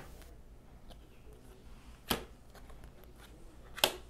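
A deck of tarot cards shuffled by hand: short card snaps at the start, about two seconds in and near the end, with little sound between.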